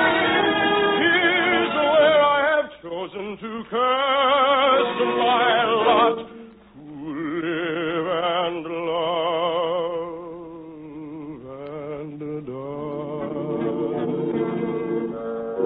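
Operatic singing with a wide vibrato, in phrases broken by short pauses and ending in long held notes. The recording cuts off everything above the middle treble.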